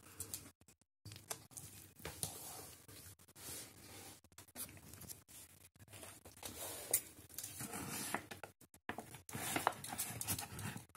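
Plastic dry-dog-food bag crinkling and rustling as it is handled, with scattered sharp clicks. Near the end, scissors snip across the top of the bag to open it.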